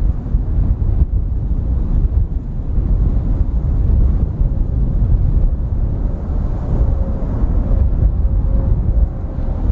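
Bombardier CRJ-100ER regional jet on approach with gear down: a steady low rumble from its General Electric CF34-3A1 turbofans, mixed with wind buffeting the microphone. A faint steady whine comes in about seven seconds in and grows stronger near the end as the jet draws closer.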